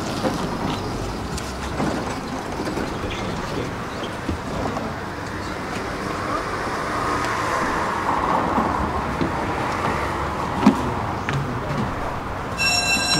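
Steady street and vehicle noise from a high-floor tram standing at a stop with its doors open while passengers board, with a sharp knock about ten and a half seconds in. Near the end a steady electronic beep starts, the door-closing warning.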